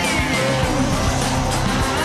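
Loud rock music playing as a soundtrack.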